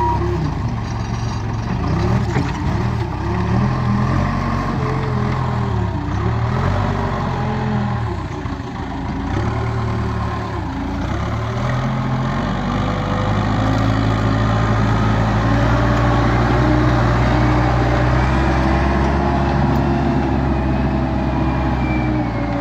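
Case 580 Super K backhoe's diesel engine working under load, its revs swinging up and down repeatedly for about ten seconds as the machine moves, then held high and steady before dropping near the end.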